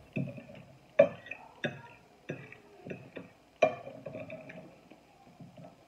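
Metal fork clinking and scraping against a glass plate: a series of sharp clinks, the loudest about a second in and again past three and a half seconds.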